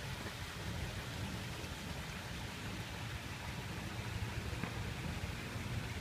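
Steady rushing noise of wind buffeting the microphone, with a constant rain-like hiss of water running into the fountain pool.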